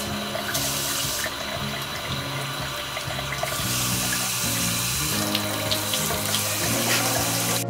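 Tap water running from a washbasin faucet's shower spray head into the basin in a steady rush, cutting off suddenly at the very end, with background music underneath.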